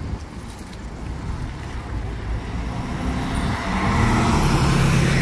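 Street traffic: a motor vehicle's engine grows louder about halfway through as it comes close, over a steady low rumble.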